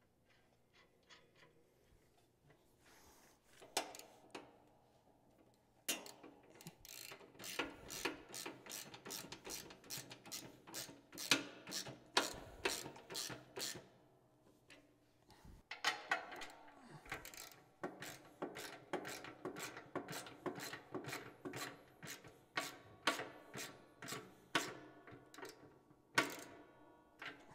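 Ratchet socket wrench clicking in quick, repeated strokes as a bolt on the plow assembly is tightened, in two long runs with a pause of about two seconds between them.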